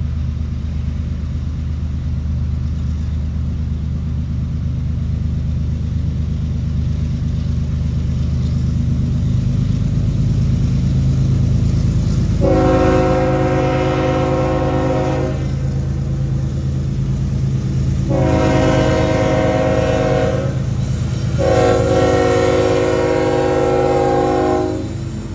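Diesel freight locomotives running past with a steady engine rumble that builds, then three long blasts of a multi-chime locomotive air horn, the first about halfway through and the last ending just before the end.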